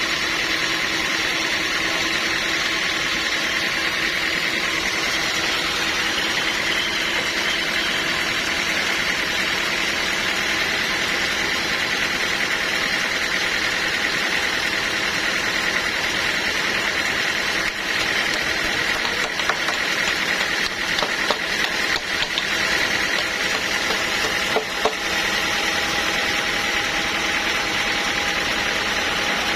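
Sawmill machinery running steadily, an even mechanical drone with a steady high whine, wavering briefly in the second half.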